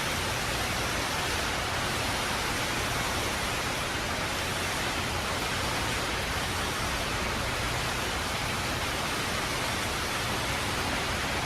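Heavy rain falling in a steady downpour: a dense, even hiss that holds at one level throughout.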